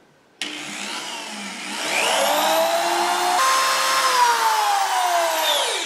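Power drill running a 1/8-inch bit through a wooden drawer front to bore pilot holes. The motor whine starts about half a second in and rises in pitch, then falls steadily through the second half before stopping near the end.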